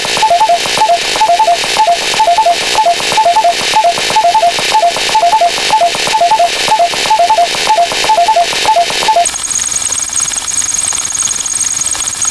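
Electronic sound effect: rapid two-note beeping, like an alarm, over a loud pulsing static hiss. About nine seconds in, the beeping stops and a plainer hiss with two high whistling tones goes on.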